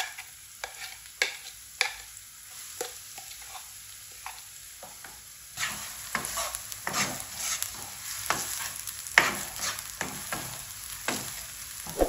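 Chopped onion sizzling in hot oil in a nonstick karahi while a spoon stirs it, scraping and knocking against the pan. The first half holds only a few light knocks over a faint sizzle; about halfway through the stirring gets busier and the sizzle louder.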